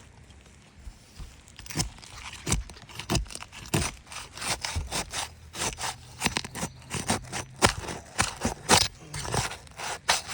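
Asphalt roof shingles being pried up, with the sealant strip breaking free and nails being worked loose. Starting about two seconds in, it is a fast, irregular run of sharp scrapes, crackles and tearing sounds.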